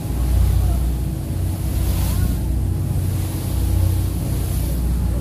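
Low, steady rumble of a motorboat under way, with a faint voice in the background.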